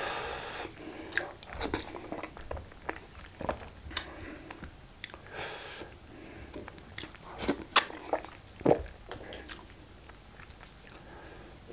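Close-miked mouth sounds of eating soft Nigerian starch dipped in banga soup by hand: wet chewing and lip smacks with many sharp clicks, and two short hissy sucking sounds near the start and about halfway.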